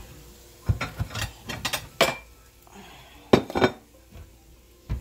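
Dishes clinking and a wooden kitchen cabinet door knocking as a plate is taken out of the cupboard: a run of clinks and knocks, then two sharp, louder knocks a little over halfway through.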